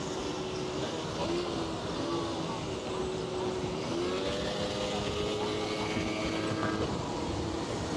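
Wind and road noise from riding a bicycle in a group, with the pitched hum of a nearby small motor vehicle's motor. The hum rises about four seconds in and then holds steady for a few seconds.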